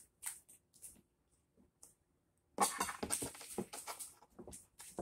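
Vinyl wrap film rustling and scraping as it is handled and rubbed down by hand over a plastic car interior trim piece: scattered short rustles, busiest from about two and a half to four seconds in.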